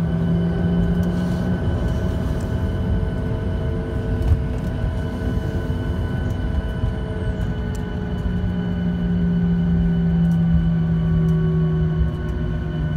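Cabin noise of a Boeing 737-800 taxiing after landing: its CFM56 engines at taxi idle, a steady hum with a faint high whine and a few slowly shifting tones, over a low rumble from the rolling aircraft. A light knock about four seconds in.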